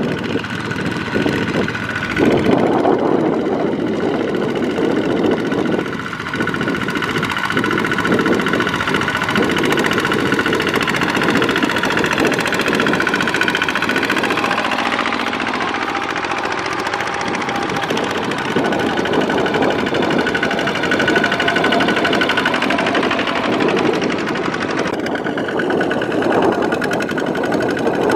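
Single-cylinder diesel engines of two-wheel walking tractors running under load, pulling trailers of rice sacks through deep sticky mud. A steady, knocking engine note, which changes abruptly a few times.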